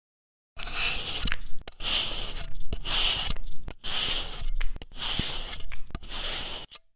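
Pink play sand being sliced with a hand-held metal cutter: about six crisp, grainy scraping strokes, each under a second, with short breaks between them.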